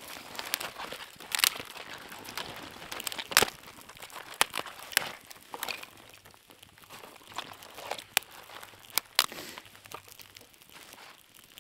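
Snow crunching in irregular bursts as it is handled, with a dozen or so sharp clicks and knocks, the loudest about a second and a half and three and a half seconds in.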